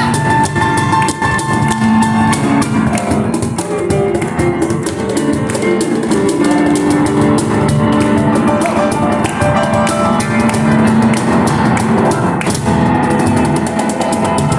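Live instrumental piano and cajón duo playing a fast number: a piano melody and chords over rapid, driving cajón strikes.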